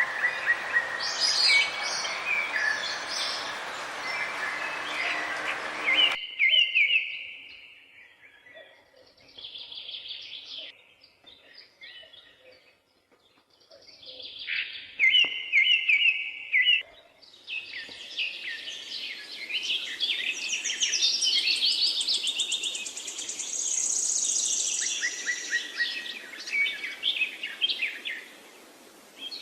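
Several wild birds chirping and calling in a forest. A dense chorus drops abruptly to sparse calls with quiet gaps about six seconds in, then builds again into a busy chorus with a fast, high trill.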